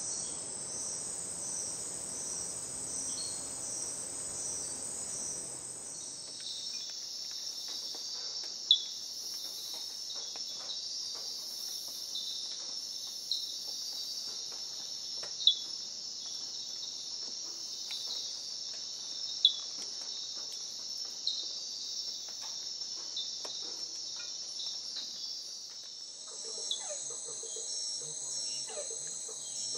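Steady, high-pitched chorus of night insects, with about five short, sharp, loud calls from a red-eyed treefrog standing out every few seconds in the middle stretch. The insect chorus changes its pattern twice.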